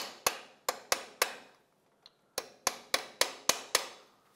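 Quick, light hammer taps on metal, about three a second, in two runs with a short pause between. They are bending a steel lock-tab washer up against a freshly torqued bolt head to lock it in place.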